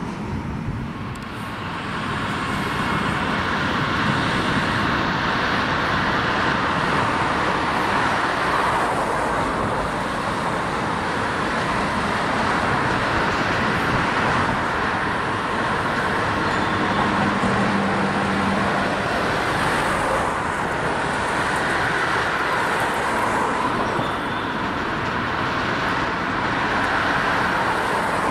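Steady rolling noise of a long freight train of covered wagons, hauled by an electric locomotive, passing at a distance: a continuous rumble and hiss of wheels on rail.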